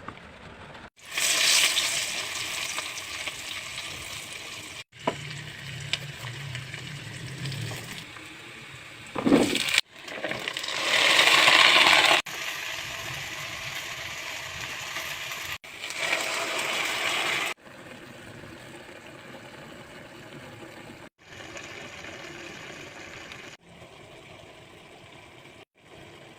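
Food sizzling in hot oil in a pan during a stir-fry of green beans, meatballs and anchovies, heard as a string of short clips that start and stop abruptly. The sizzle is loudest about a second in and again around eleven seconds.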